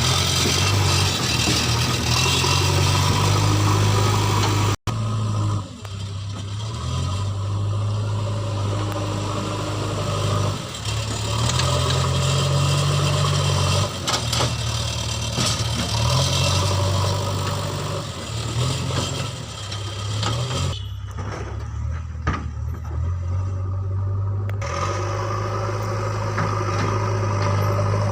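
Diesel engine of a JCB 3DX backhoe loader running under changing load, its pitch rising and falling as it digs and loads. The sound breaks off sharply about five seconds in and picks up again.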